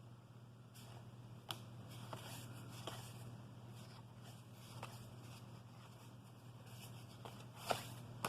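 Baseball cards being handled and flipped through, giving scattered soft clicks and taps of card against card, the sharpest a little before the end, over a steady low hum.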